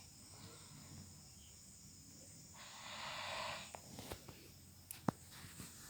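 A sleeping person snoring: a long hissing breath starts about two and a half seconds in and lasts about a second, followed by several short sharp clicks.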